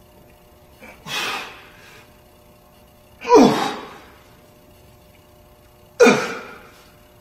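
A man's forceful breaths with the effort of barbell reps: three sharp exhalations about two and a half seconds apart, the second and third louder, each falling in pitch like a strained grunt.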